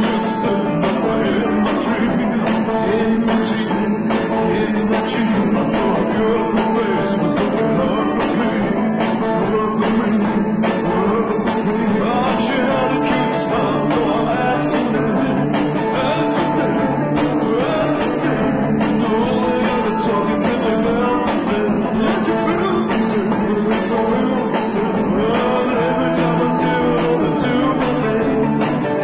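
Rock and roll song with singing and guitar, playing steadily.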